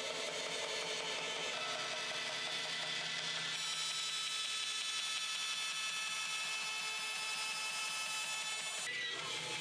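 Bandsaw running and cutting lengthwise through a leather work boot, a steady whir with blade hiss. The sound changes suddenly near the end.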